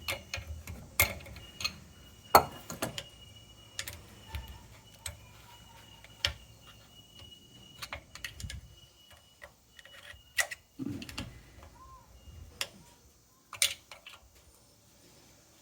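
Irregular clicks and light metal knocks of small parts being handled and fitted as an outdoor hydrant's handle and linkage are put back together.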